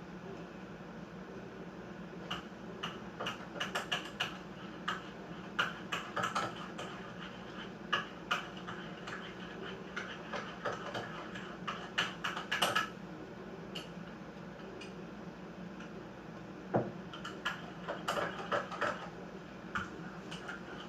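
Irregular light clicks and taps in clusters over a steady background hum.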